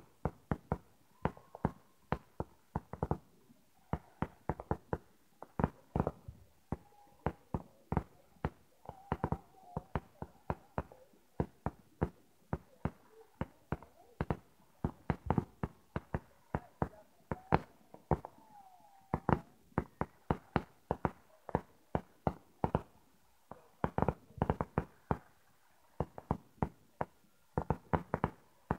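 Fireworks going off: a rapid, irregular string of sharp bangs, several a second, with a few short lulls.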